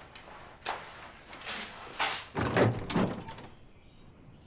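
Footsteps on a wooden floor, then a house door being unlatched and pulled open, with the loudest knocks and clatter about two to three seconds in.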